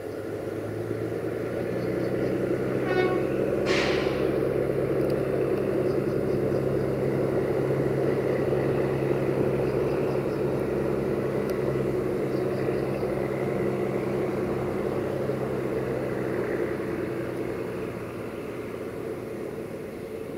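A CFR 060-EA electric locomotive hauling passenger coaches runs past at close range with a steady hum and rolling rumble. The sound builds over the first couple of seconds and fades near the end as the train passes. About three to four seconds in there is a brief horn toot.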